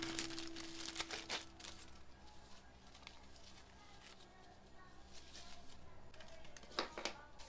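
Clear plastic packaging bag crinkling and rustling as it is handled and opened, with a few sharp crackles about a second in and again near the end.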